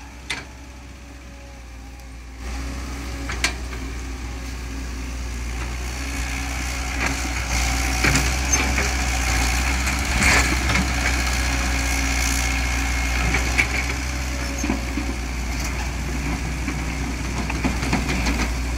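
Komatsu PC130 excavator's diesel engine running steadily, growing louder about two and a half seconds in and staying up, with a few sharp knocks scattered through.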